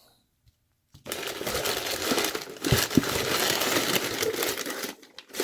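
Packaging being crumpled and crinkled by hand for about four seconds, starting about a second in, with two light knocks in the middle.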